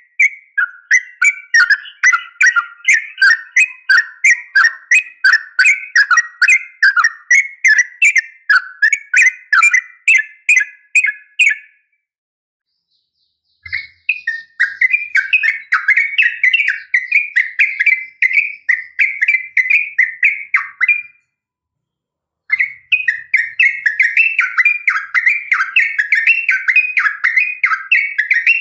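Female sooty-headed bulbul (trucukan) calling: runs of sharp, chattering notes about two to three a second, in three bouts broken by short silences about twelve and twenty-one seconds in. It is the female's call to a male, played to set caged males singing.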